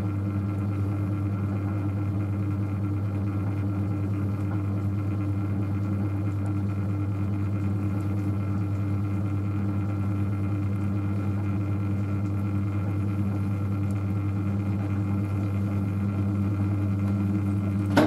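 Electric potter's wheel running at speed: a steady motor hum that holds one pitch throughout.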